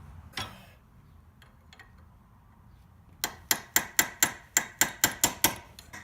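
A hammer tapping in a quick, even series of sharp strikes, about four a second, starting about three seconds in. It is driving a new bearing into the walking sprinkler's housing. There is a single knock shortly after the start.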